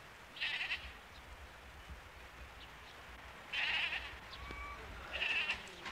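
Sheep and goats in a herded flock bleating: three short calls, about half a second in, about three and a half seconds in, and about five seconds in.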